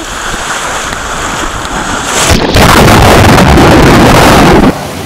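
Water rushing and splashing on a water-park ride, with wind buffeting the microphone. It becomes much louder and distorted for about two seconds midway, then drops off suddenly.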